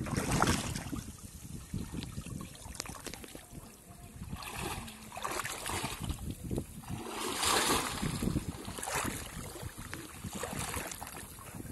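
Shallow water sloshing and splashing as men wade and work a bamboo polo fish trap, plunging it into the water and groping inside it by hand. The splashing comes in several separate surges.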